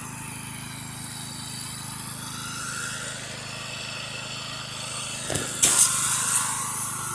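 A 4200 psi pressure washer's engine running steadily; about five and a half seconds in there is a click and the high-pressure spray from the wand starts with a loud hiss as the soap rinse begins.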